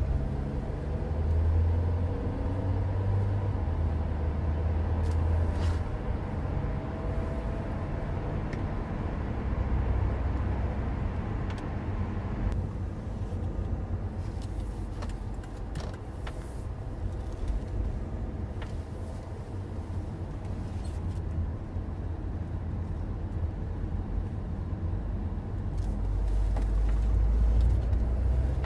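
Steady low rumble of a car's engine and tyres on the motorway, with no voices.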